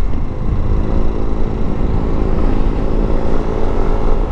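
Yamaha NMAX scooter's single-cylinder engine running steadily at cruising speed, under a heavy low rumble of wind and road noise.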